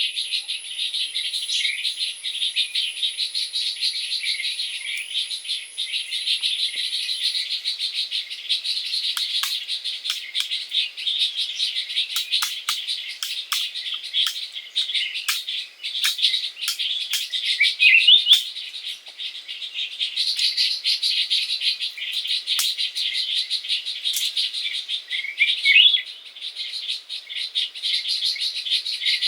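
Birds chirping and calling over a steady, dense high-pitched chorus, with many short ticks throughout and a couple of louder calls, about 18 and 25 seconds in.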